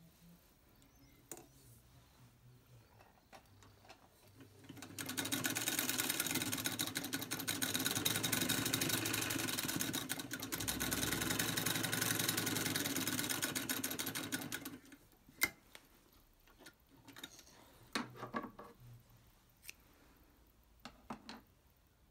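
Singer 66K sewing machine stitching through denim: a steady, rapid needle-and-shuttle chatter starts about five seconds in and runs for about ten seconds. A few light clicks follow as the fabric is handled.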